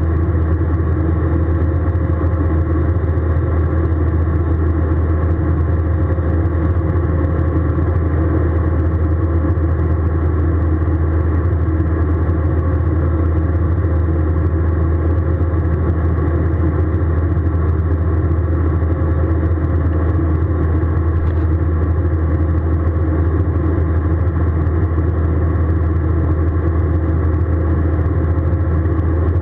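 Steady cabin noise of an Airbus A320 in flight, a deep drone of engines and airflow that does not change in pitch or level.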